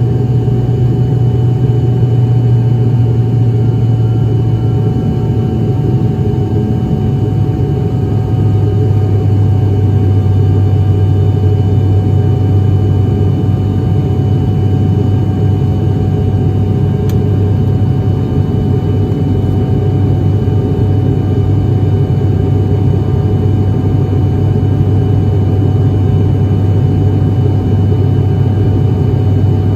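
ATR 72-600's Pratt & Whitney PW127 turboprops running at high power: a steady, loud drone with a deep propeller hum and a few fixed higher tones, heard from inside the cabin. The low hum drops slightly in pitch about six to eight seconds in, then holds steady.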